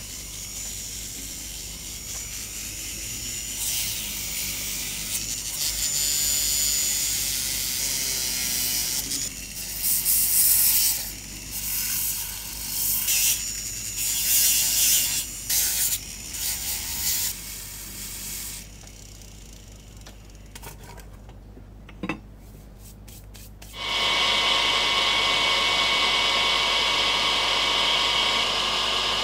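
Hand tools working metal in irregular rubbing or filing strokes, with a few clicks. About twenty-four seconds in, a small high-speed rotary tool starts and runs steadily with a high whine.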